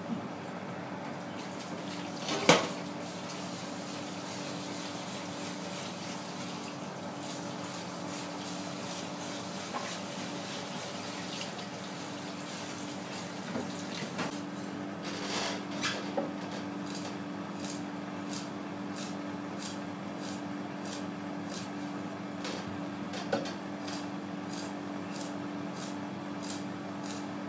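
Chef's knife bone-cutting a large pike conger (hamo) on a wooden board: short crisp strokes, evenly spaced at about two a second, from about halfway on. Before that, wet wiping and water on the board, with one sharp knock a couple of seconds in, all over a steady hum.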